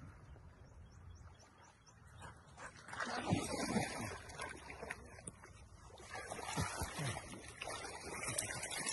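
A dog splashing through shallow, muddy creek water close by, starting about three seconds in and going on in uneven bursts.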